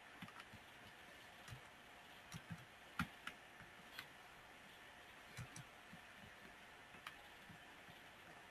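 Near silence broken by about a dozen faint, irregularly spaced clicks and soft taps.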